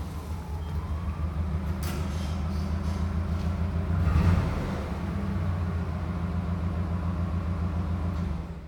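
Propane-fuelled forklift engine running as the forklift drives across a concrete shed floor, a steady low hum that swells louder about four seconds in. A brief knock sounds about two seconds in.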